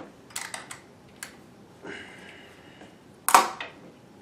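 Small clicks and a short scrape from handling the bobbin and bobbin case of a Bernina 610 sewing machine while loading the bobbin, then one sharp, loud click a little over three seconds in.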